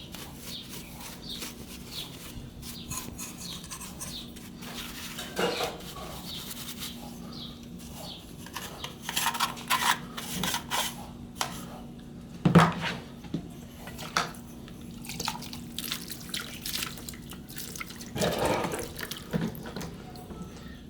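Toyota Echo throttle body being scrubbed with a brush in a pot of solvent: irregular swishing, splashing and scraping of liquid and metal, with one louder knock about midway. A faint steady hum runs underneath.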